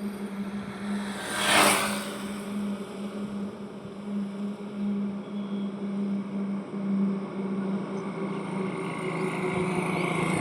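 Road traffic: a steady low drone of running vehicles, with one vehicle rushing past close by in a brief loud whoosh about a second and a half in.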